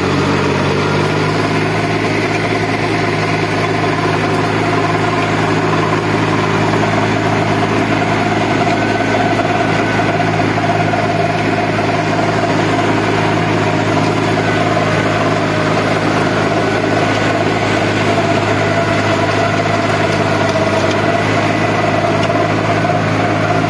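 Small tractor's diesel engine running steadily under load as it pulls a rotavator through tall dhaincha, ploughing the green-manure crop under.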